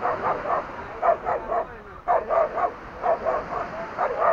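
A dog barking repeatedly at a man, in quick runs of about three barks roughly once a second.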